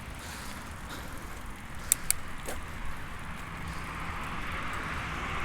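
Steady rushing noise of riding a bicycle, wind over the microphone and tyres on the road, growing a little louder near the end, with two sharp clicks about two seconds in.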